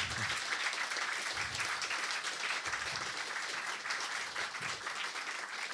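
Audience applauding, a steady sustained round of clapping.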